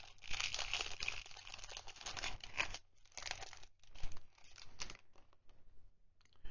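Clear plastic sleeve crinkling as it is worked off a fountain pen by hand. The crinkling is dense for about the first three seconds, then comes in shorter, fainter bursts that die away near the end.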